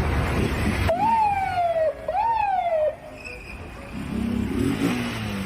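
Police siren giving two whoops, each jumping up quickly in pitch and then sliding down over most of a second, one about a second in and another a second later. A loud rushing noise cuts off just before the first whoop, and a low hum comes in near the end.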